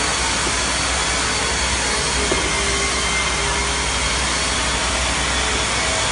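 Automatic self-adhesive sticker labeling machine and its slat conveyor running steadily, giving an even mechanical noise with a small click about two seconds in.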